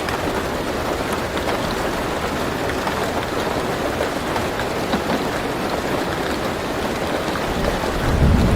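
Steady rain drumming on a car roof, heard from inside the car. About eight seconds in, a low rumble of thunder swells up under the rain.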